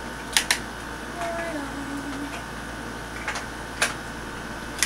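Sharp light taps and clicks as a makeup brush and compact palette are handled: a quick pair just under half a second in, single clicks past the three- and four-second marks, and another pair at the end. A brief soft hum of a woman's voice comes in between.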